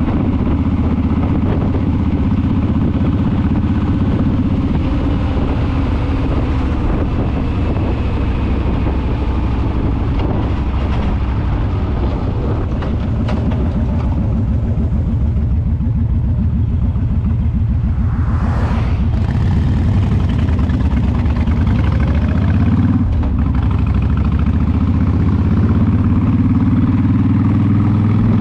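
Honda VTX cruiser's V-twin engine running under way, with wind noise, heard from the rider's seat. The engine eases off around the middle, there is a brief whoosh about two-thirds of the way through, and the revs climb again over the last few seconds as the bike accelerates.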